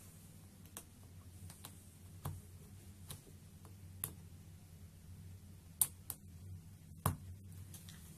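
Plastic toy train track sections clicking and knocking as they are pushed and snapped together by hand: scattered sharp clicks about a second apart, the loudest two late on, over a faint steady low hum.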